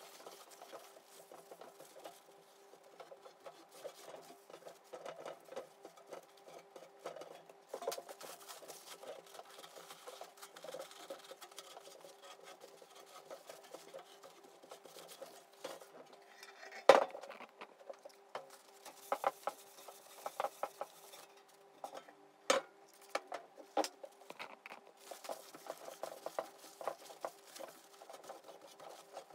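Paper towel wiping and scrubbing the wet, soapy painted sheet-steel cover of a welding machine: soft, irregular rubbing, with sharp knocks of the loose metal panel on the table, the loudest a little past halfway and several more soon after. A faint steady hum runs underneath.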